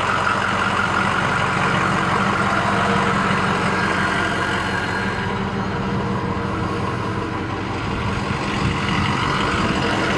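Ford F350 Super Duty's 6.0-litre Power Stroke V8 turbo-diesel idling steadily, heard from outside the truck, with the deep low end growing stronger about eight seconds in.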